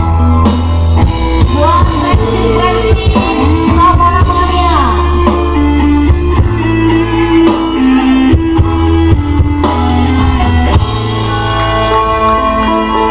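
Music with a singing voice and a deep, heavy bass, played very loud through a truck-mounted sound system of stacked speaker cabinets.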